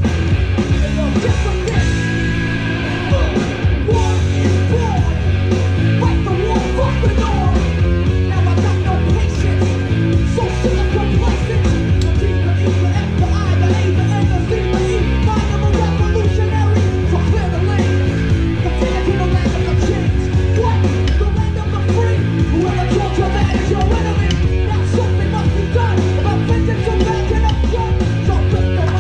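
Loud rock music with a steady beat and a singing voice.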